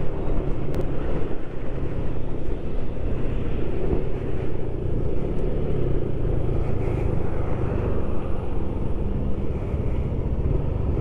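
Steady rush of wind and road noise on the move, with a Yamaha scooter's engine running underneath.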